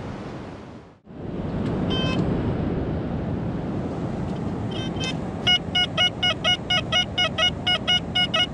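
XP Deus II metal detector beeping over a buried target: one short tone about two seconds in, then quick repeated beeps, about four a second, from about halfway through. Steady wind and surf noise underneath.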